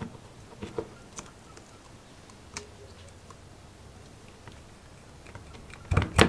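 Needle-nose pliers clicking against a rusted pin on an old lawnmower shaft as it is worked loose, a few scattered small ticks, then two sharper knocks close together near the end.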